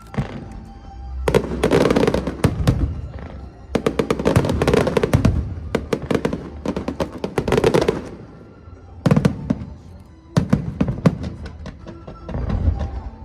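Aerial fireworks going off in rapid volleys of bangs and crackling, in about four waves with short lulls between them, with music playing under them.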